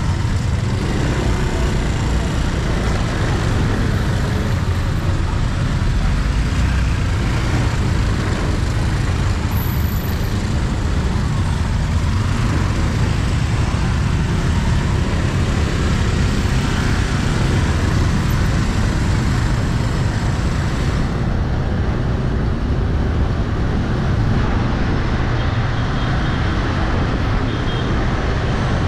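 Busy street traffic, mostly motorbike and car engines, forming a steady dense noise with a heavy low rumble.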